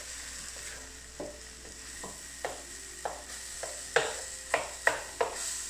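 Egg and tomato stir-fry sizzling in a wok while a wooden spatula stirs it, knocking and scraping on the pan about once a second, with sharper, quicker knocks near the end.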